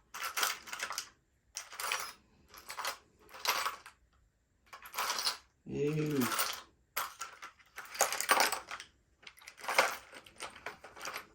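Small metal hand tools clinking and rattling against each other in a series of short bursts.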